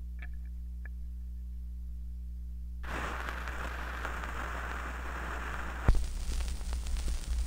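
Low steady hum of the playback equipment, then about three seconds in the hiss and crackle of a 78 rpm shellac record's surface noise starts as the stylus runs in the lead-in groove before the music. One loud click about six seconds in.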